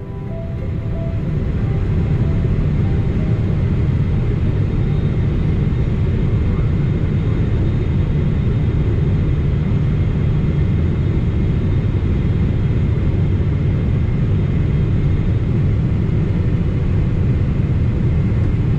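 Steady low rumble of a Boeing 777-300ER airliner, swelling in over the first couple of seconds as the last music notes fade, then holding level.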